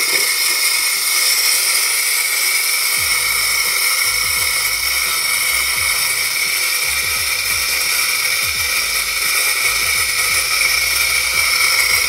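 Espresso machine steam wand running at full, a loud steady hiss of steam blowing into a plastic pitcher.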